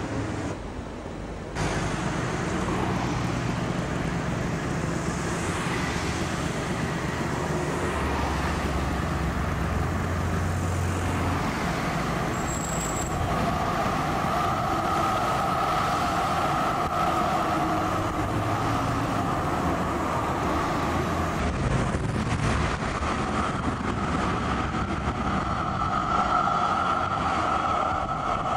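Street traffic with cars driving past close by and an articulated tram running along the street. From about halfway through there is a steady whine as the tram passes.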